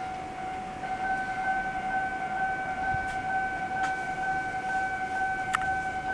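Steady electronic railway warning tone at one pitch with a higher overtone, growing louder about a second in. It is the alarm that sounds as a train approaches the station.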